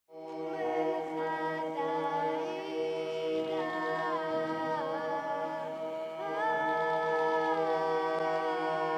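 Intro music of unaccompanied voices singing long held notes over a steady low drone, with the upper voice moving to new notes every couple of seconds.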